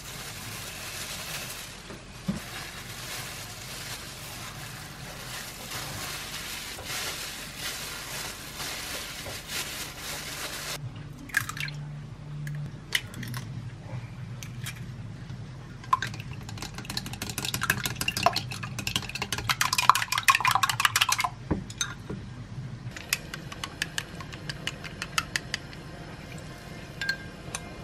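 Plastic-gloved hands rustling as a gimbap is rolled up in laver, then a few sharp clicks as eggs are cracked into a glass mug. About halfway through, the eggs are beaten fast in the glass mug, a rapid clinking that is the loudest part.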